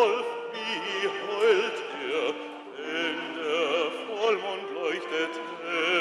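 Small mixed ensemble of men's and women's voices singing together in harmony with vibrato, swelling and easing in phrases.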